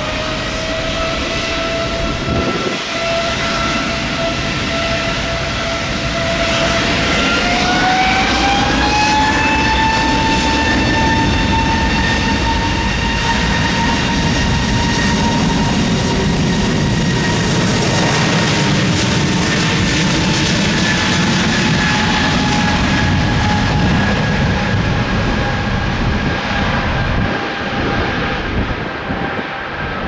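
Embraer E195-E2's Pratt & Whitney PW1900G geared turbofans at takeoff thrust through the takeoff roll: a loud engine whine that rises in pitch at the start and again about seven seconds in, then holds steady and eases slightly lower in the second half, over a deep rumble.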